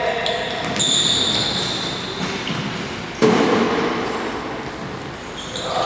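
Echoing gym sounds on a hardwood basketball court: high sneaker squeaks about a second in, then a sudden loud thud a little past three seconds that rings on in the hall.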